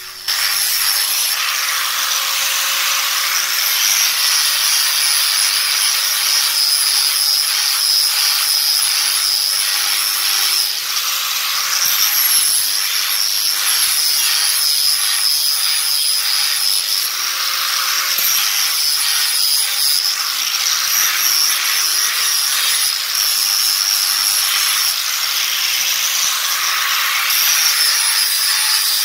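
Angle grinder with a flap disc sanding the corners of a wooden stick round: a steady high motor whine over the rasp of the disc on the wood. The whine sags briefly a few times as the disc is pressed in.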